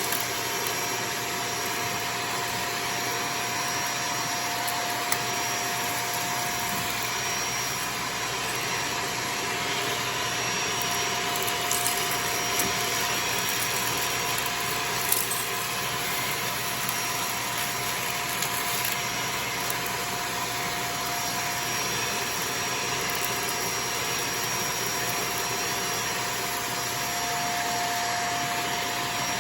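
Shark DuoClean vacuum cleaner's motor running steadily, a constant rushing of air with a high, even whine, broken by a few small clicks.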